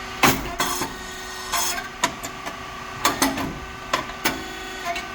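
A series of irregular knocks, clicks and short scrapes, about nine in all, over a steady mechanical hum.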